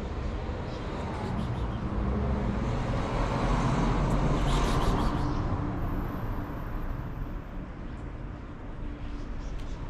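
Traffic noise from a passing road vehicle, swelling to its loudest about four to five seconds in and then fading away.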